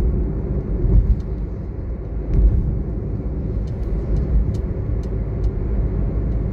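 Cabin noise of a car driving at road speed: a steady low rumble of tyres and engine, with a couple of brief low bumps about one and two and a half seconds in.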